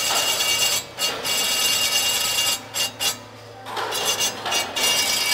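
FDY-6L line-straightening machine running with a steel rod turning through its straightening rollers: a loud scraping hiss with steady high whines over a low hum. The noise drops away briefly about a second in and again for about a second near the middle.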